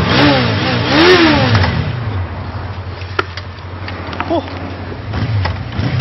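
Motorcycle engine revving over a steady idle. The pitch rises and falls twice in the first second and a half, then there is one short blip about four seconds in.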